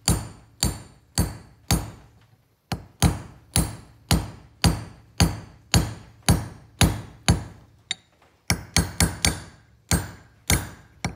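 Hammer striking a Japanese plane (kanna) blade laid on a toko striking block, steady ringing metallic taps about two a second, tapping the blade to bend it slightly. The taps pause briefly about two seconds in, and come in a quick run of five near the end.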